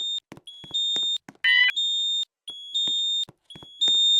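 Fire alarm sounder going off during a fire alarm system test. A high electronic tone steps up in pitch, holds, and cuts off, repeating about once a second.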